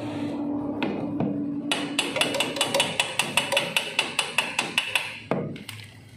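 A hand tool tapping rapidly on metal, about six sharp ringing strikes a second for some three seconds, starting near two seconds in. A single dull thump follows just after.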